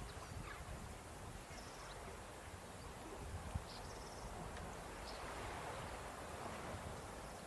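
Faint seaside ambience: wind rumbling on the microphone, with a few brief high chirps about one and a half and three and a half seconds in.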